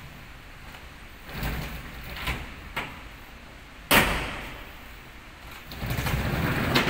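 Slatted roller lid on a pickup bed rattling as it rolls open, then a single sharp clack about four seconds in. It then rolls shut again with the same rattle and latches with a click near the end.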